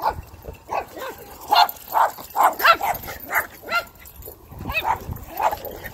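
Dog barking in a quick run of short barks, about two a second, with a brief pause near the four-second mark before a few more barks.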